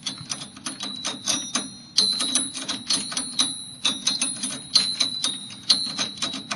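Fingertips plucking the metal fins of an iMac G3's CPU heatsink, played like an instrument. A rapid, uneven run of plucks, several a second, each ringing with a high metallic tone that dies away.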